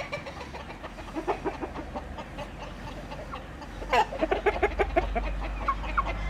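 Chickens clucking, many short calls overlapping, growing busier and louder about four seconds in with a sharper squawk.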